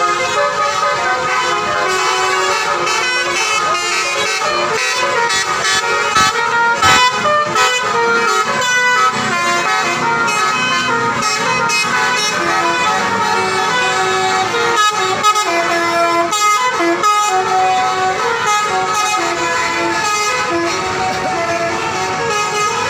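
Indonesian bus 'telolet' horns: multi-tone musical air horns playing a run of tunes whose notes step from pitch to pitch without a break, over the low rumble of passing buses.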